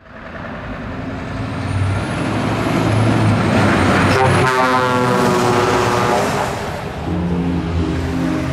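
A truck approaching and passing at speed, blowing its multi-tone air horn from about four seconds in, the horn's pitch falling slightly as it goes by. Steady music notes come in near the end.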